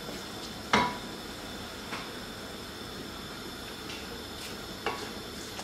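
Risotto rice simmering in white wine with a gentle sizzle as a wooden spoon stirs it in an enamelled pot. The spoon gives a sharp knock against the pot about a second in and two softer knocks later.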